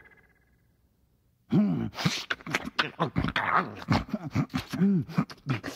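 Spooky sound effect from a cassette tape: a synthesizer tone fades away, then about a second and a half in a creature-like voice starts up with repeated short rising-and-falling calls, broken by clicks and hissing breaths.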